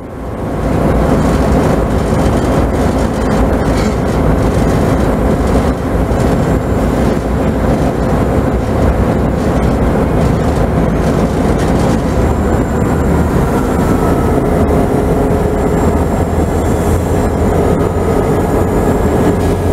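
Steady drone of diesel locomotives and a train rolling slowly, heard from aboard the train, with no break in the noise.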